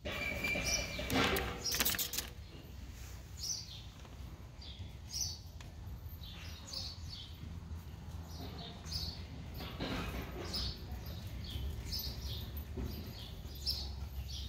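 Small birds chirping over and over, short high chirps every second or so, over a steady low rumble. A louder burst of noise in the first couple of seconds.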